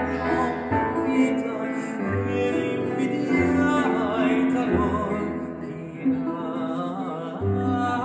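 Classical Italian vocal music: a singer's voice with vibrato over an instrumental accompaniment with a recurring low bass note.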